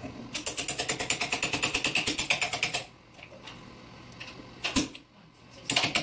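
Wood chisel cutting into a door edge: a fast, even run of short scraping strokes that stops about halfway, one sharp knock, then the fast strokes start again near the end.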